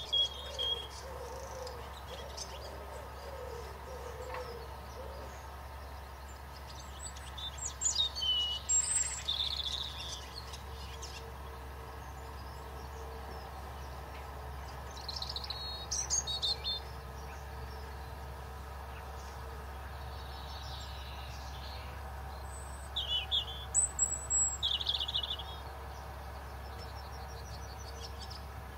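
Birds calling and chirping, with bursts of high twittering about a quarter of the way in, around the middle and again near the end. A low cooing call repeats during the first few seconds, all over a steady low hum.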